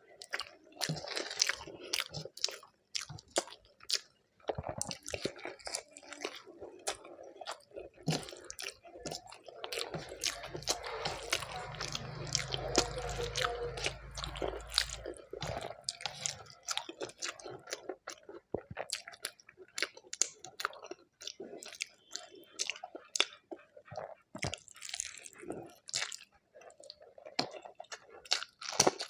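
Close-miked chewing and crunching of a mouthful of khichdi and fried vegetables, with many sharp wet mouth clicks and smacks. A low rumble sits under the chewing for a few seconds in the middle.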